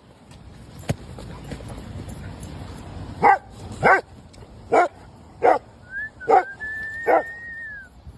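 A dog barking six times in quick succession, roughly one bark every two-thirds of a second, each bark short and sharp. A thin, high, drawn-out whine runs over the last few barks.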